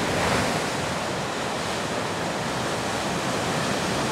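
Ocean surf breaking and washing up onto a sandy beach, a steady rush of waves.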